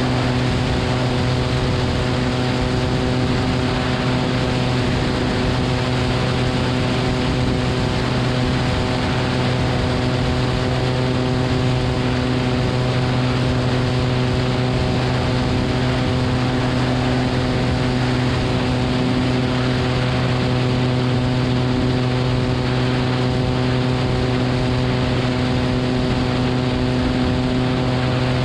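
Cessna 180's six-cylinder piston engine and propeller droning steadily in flight, at a constant pitch, mixed with a steady rush of airflow on a camera mounted on the wing.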